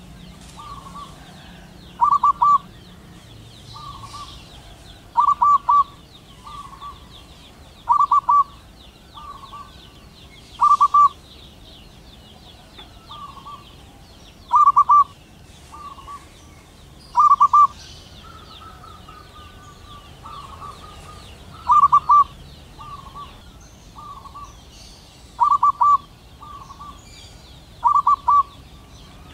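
Male zebra dove (perkutut) singing its staccato cooing song: a loud burst of quick, rippling coos repeated about every three seconds, with softer coo phrases in between.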